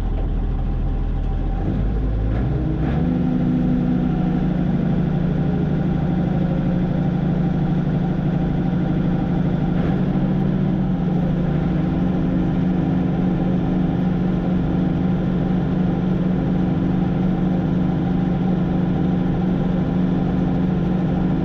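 Combine's Perkins 354 six-cylinder diesel engine being throttled up about two seconds in, its pitch rising, then running steadily at high speed.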